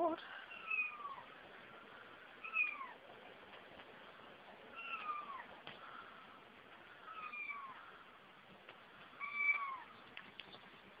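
Kitten meowing five times, a short call falling in pitch about every two seconds.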